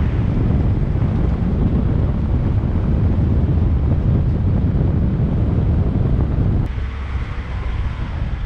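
Wind buffeting the microphone, a heavy, irregular low rumble. About seven seconds in it cuts abruptly to a lighter, steady rushing hiss.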